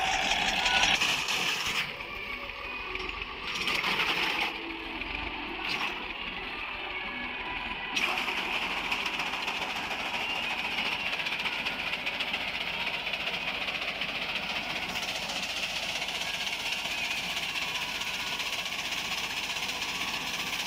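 Massey Ferguson 240 tractor's three-cylinder diesel with a straight-through silencer running under load, driving a front-mounted reaper through standing wheat, with a dense rattling clatter. It is quieter and duller from about two to eight seconds in, then steady and even.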